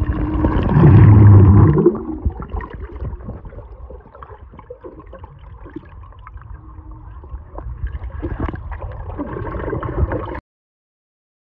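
Swimming-pool water heard through a submerged camera: muffled bubbling and gurgling, with a deep rush of bubbles in the first two seconds, then quieter crackling water noise that swells again near the end before cutting off suddenly.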